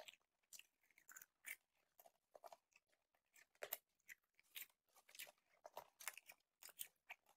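Popcorn being chewed close to the microphone: a string of faint, irregular crunches, a few every second.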